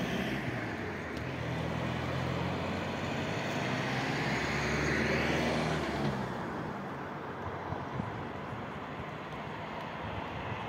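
A car passing on the road, its engine and tyre noise building to a peak about five seconds in and then fading away.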